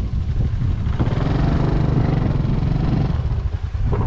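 Motorbike engine running steadily as it is ridden.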